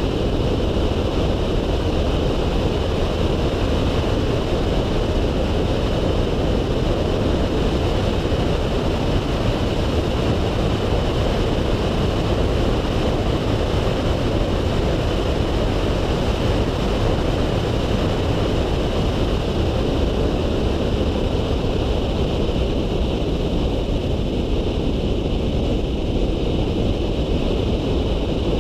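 Steady wind rush over the microphone, mixed with road and engine noise, from a camera mounted outside a Volkswagen Polo 9N3 driving a lap.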